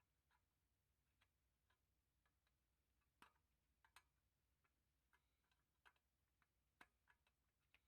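Near silence broken by about a dozen faint, irregular light clicks and taps, the sharpest a little over three seconds in, at four seconds, and near seven seconds.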